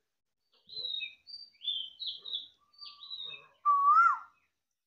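Birds chirping: a run of short, high chirps, then a louder single call that slides up and down about three and a half seconds in.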